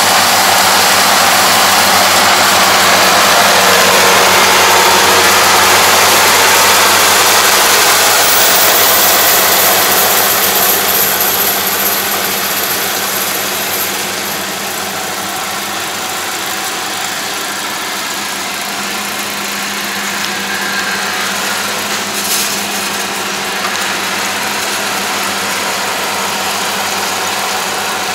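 2021 Yanmar AE447 combine harvester's diesel engine and threshing gear running steadily under load while cutting grain, a low hum under a dense hiss. It is loudest for the first ten seconds or so, then drops a little as the machine moves off.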